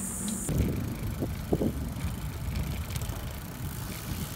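Wind and road rumble picked up by a camera riding on a moving bicycle, as an even rushing noise. A steady hum cuts off about half a second in, and there are two short higher sounds a little later.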